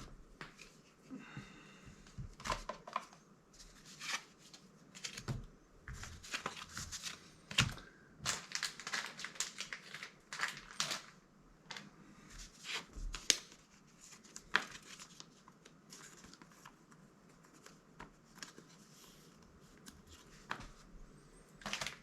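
Foil booster-pack wrapper crinkling while being handled and opened, along with trading cards being handled. It comes as irregular crackles and clicks, busiest in the middle.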